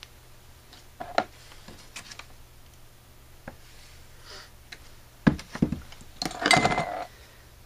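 Metal parts of a Carter RBS one-barrel carburetor clinking and knocking as it is handled and taken apart: a few light clicks, then several sharp knocks and a brief metallic ring near the end.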